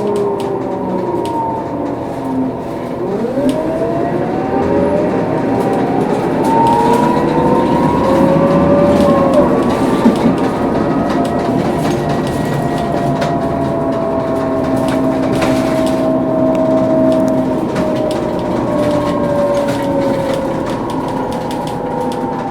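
Scania K230UB bus driving, its differential giving the whine of its distinctive, unusual-sounding axle over its engine and gearbox. The whine falls in pitch at the start, rises for several seconds from about three seconds in, holds steady through the middle and falls again near the end.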